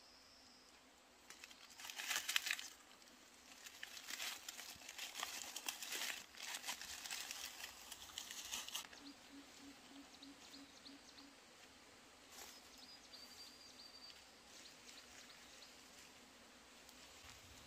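Dry bamboo leaves and tinder crackling and crinkling in dense bursts as a small fire is lit under bamboo sticks. The sound stops about nine seconds in.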